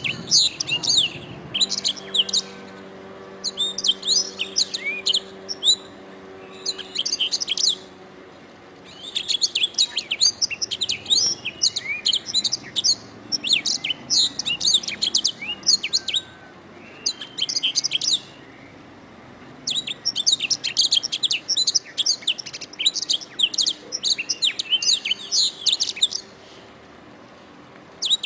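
Domestic canary singing: phrases of fast, high trills and chirps lasting a few seconds each, separated by short pauses.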